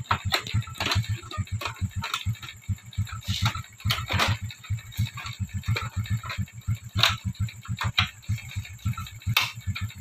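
Single-cylinder four-stroke engine of a Honda XRM 125 motorcycle idling with a steady, rapid putter, with scattered light clicks from hands working on its wiring.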